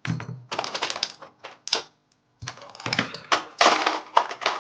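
Rapid clicking and clattering of model-kit parts being handled: the alloy inner frame and its plastic pieces knocking together in the hands. It comes in two spells with a brief pause about two seconds in.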